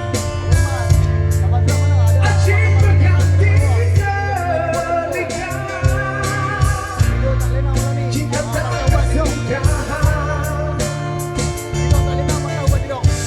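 A male singer sings a Malay rock ballad over backing music with electric guitar, bass and drums.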